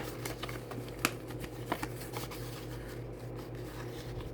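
Paper savings-challenge cards being handled and slid into a holder: light rustling with a few sharp taps and clicks, the loudest at the very start and about a second in, over a steady low hum.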